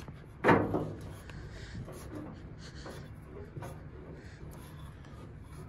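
Faint scraping and clicking from a 1986 Ford F-150's tailgate latch handle being pulled and worked while the tailgate stays shut. A brief vocal sound about half a second in is the loudest thing.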